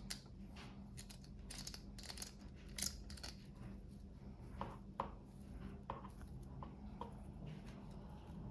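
Small plastic toy packaging being handled and opened by hand: quick crinkles and light clicks, thicker in the first few seconds, then a few scattered duller taps.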